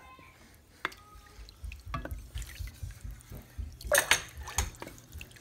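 Wooden spoon stirring thin liquid in an enamelled Dutch oven: sloshing and splashing with scattered knocks and scrapes of the spoon against the pot, loudest about four seconds in.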